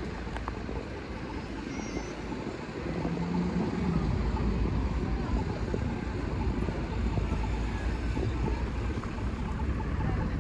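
Street traffic noise: a steady wash of passing vehicles with a low rumble that grows louder about four seconds in.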